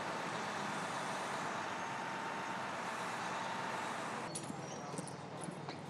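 A steady engine-like running noise with a faint steady whine, cut off abruptly about four seconds in and followed by quieter background with light clicks.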